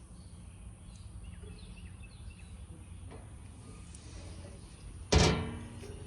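A stainless-steel toolbox lid on a truck welding bed shutting about five seconds in: one loud metal clang that rings briefly and fades.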